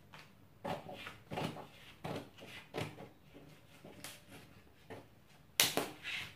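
Scissors snipping through brown pattern paper, a cut about every two-thirds of a second, the loudest snip near the end.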